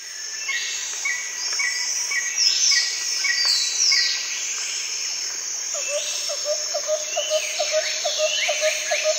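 Dense chorus of bird calls and insects: rapid repeated chirps and falling whistles, joined about six seconds in by a lower call repeated a few times a second.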